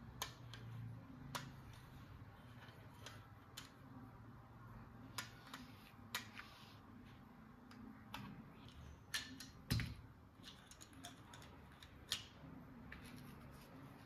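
Light plastic clicks and taps at irregular intervals from handling a toy washing machine, the loudest about ten seconds in, over a faint low hum.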